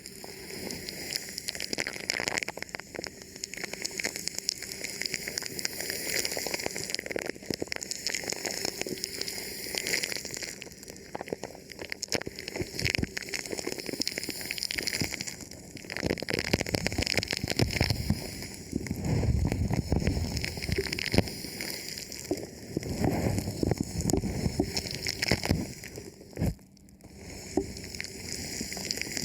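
Thin plastic film wrapped over a microphone being rubbed and touched, giving a continuous crinkling and crackling full of small clicks. Heavier, deeper rubbing and bumps come in the second half.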